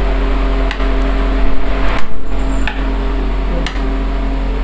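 Hot air gun's small fan motor running steadily with its casing off, a loud whir with a strong mains hum. A few sharp clicks come about a second apart.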